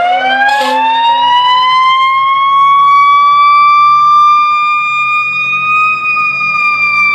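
Fire engine's siren winding up to a high, steady pitch, with a short blast of the air horn about half a second in.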